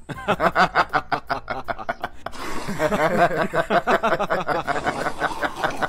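Loud, drawn-out laughter in quick repeated 'ha-ha' pulses, turning into a denser stretch of laughing about two seconds in.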